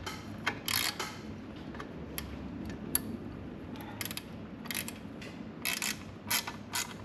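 Hand ratchet wrench clicking in short, irregular runs of sharp clicks.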